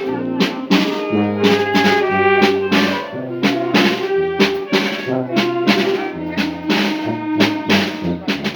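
Brass band music: trumpets and trombones playing a tune over drums and cymbals keeping a steady beat.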